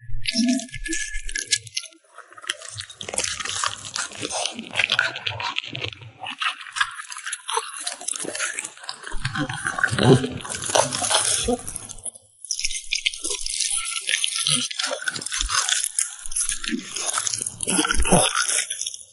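French bulldog chewing and crunching food: a dense run of quick, irregular crunches and bites, with short pauses about two seconds in and again about twelve seconds in.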